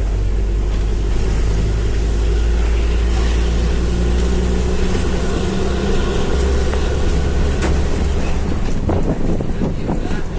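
Bus engine and exhaust running under way, a loud deep drone whose pitch shifts about six seconds in, with the throaty exhaust note that the title calls "ngorok" (snoring).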